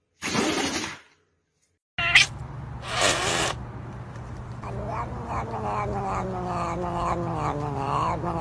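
A cat yowling: one long drawn-out call, pulsing and slowly falling in pitch, over the second half. Before it come a few short hissing noises.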